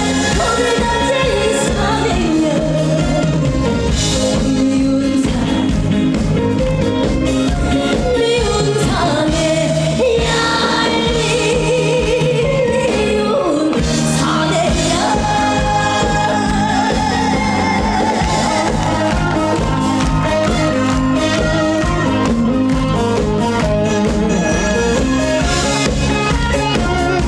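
A woman singing a trot song live with vibrato over an amplified band accompaniment with a steady beat.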